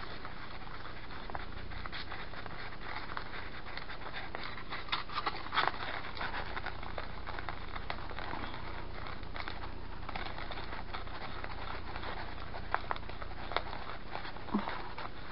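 A small plastic spoon stirring and scraping a powdered-candy mixture in the well of a plastic candy-kit tray: light continuous scratching with scattered small clicks, a few sharper taps about five seconds in and again near the end.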